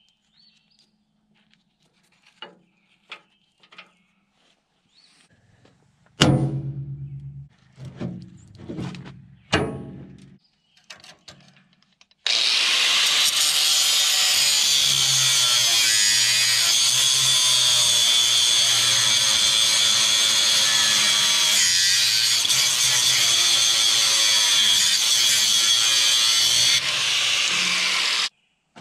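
Corded angle grinder cutting steel at the backhoe bucket's pivot linkage. It runs steadily for about sixteen seconds, then stops. Earlier come light clicks and a few loud metallic knocks.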